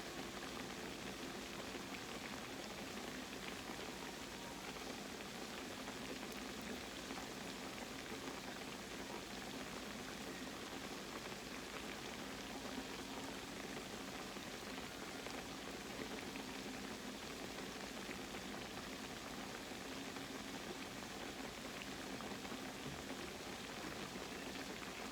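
Croquettes frying in hot oil in a pan: a steady, even sizzle and crackle, with a faint low hum underneath.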